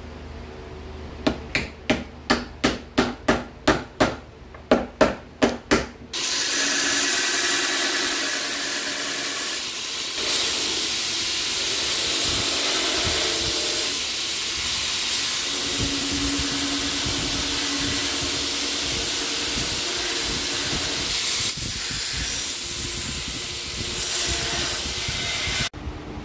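A quick run of about a dozen sharp taps, roughly three a second, then a belt grinder grinding a cleaver's wooden handle, a loud steady hiss that stops suddenly near the end.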